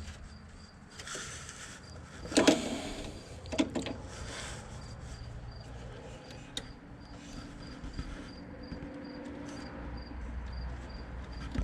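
Handling noise from setting up a MIG welder: scattered clicks and knocks of metal parts and wire being worked by hand, the loudest about two and a half seconds in, over a steady low hum.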